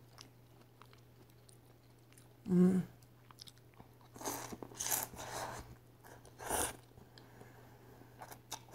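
Ramen noodles being slurped off chopsticks and chewed, in a few noisy slurps in the middle and about two-thirds through. A short hummed voice sound comes about a quarter of the way in and is the loudest moment.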